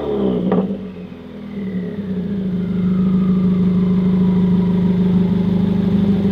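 2018 Subaru WRX's turbocharged 2.0 L flat-four, fitted with an equal-length header and catless J-pipe, coming down off a rev. There is a single sharp pop from the exhaust about half a second in, and the engine then settles into a steady idle.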